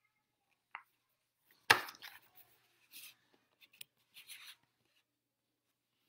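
Desk handling noises: a sharp knock about two seconds in, then scattered small clicks and rustles.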